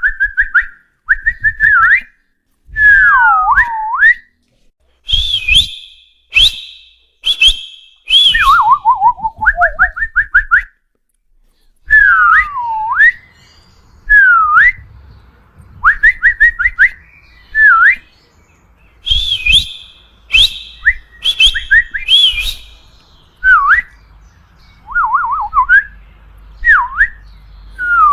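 A series of attention-getting whistles to call a dog: short repeated chirps, long falling and rising glides, and quick warbling trills, with some sharper, higher whistles in between.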